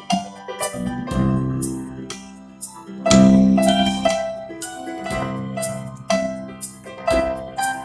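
Music played on a keyboard instrument: struck notes and chords that ring and fade, with the loudest chord about three seconds in.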